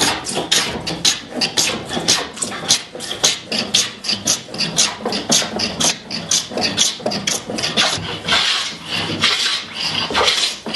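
Small hand plane cutting shavings off a wooden tabletop board in quick short strokes, about four a second, with longer strokes near the end. It is taking down the high ends of a bowed board to flatten it.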